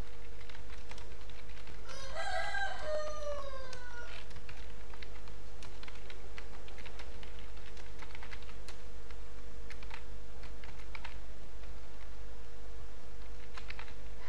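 Computer keyboard typing, a scattered run of key clicks, over a steady low hum. About two seconds in, a rooster crows once in the background, a call of about two seconds that falls in pitch at the end.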